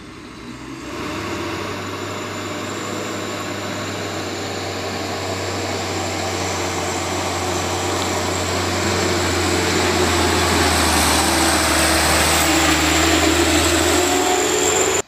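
Loaded box truck's diesel engine pulling steadily uphill in low gear. It grows louder as the truck climbs toward the microphone and passes close by, then cuts off abruptly.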